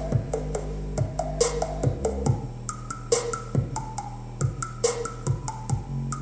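Music with a steady beat, a kick drum about twice a second over a sustained deep bass line, playing through a DIY DeWalt toolbox Bluetooth speaker with a PVC-pipe bass port. The lid is sealed, and no rattle from the box is heard.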